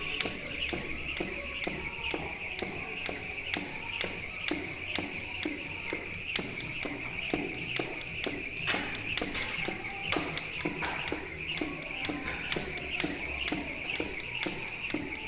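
Jump rope skipping: the rope slaps the rubber gym floor in a steady rhythm of sharp clicks, mixed with the jumper's landings.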